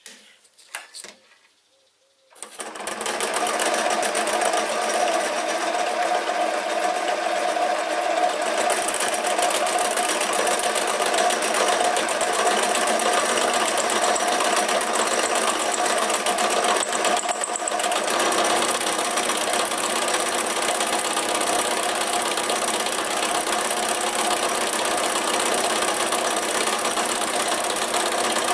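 Sieg SC3 mini lathe starting up about two seconds in, coming up to speed within a second and then running steadily with a motor and gear whine, as a chamfering tool turns down the conrod blank held between centres.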